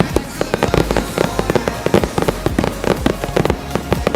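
Fireworks finale: a dense, rapid barrage of shell bursts and bangs, several a second with no let-up.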